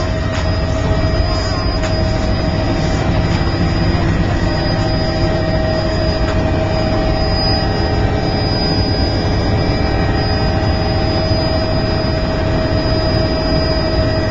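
Helicopter in flight heard from inside the cabin: a steady, loud engine and rotor rumble with a constant high whine.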